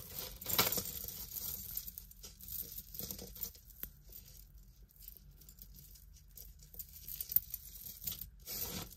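Small pieces of jewelry being handled and sorted by hand: scattered light clicks, clinks and rustles.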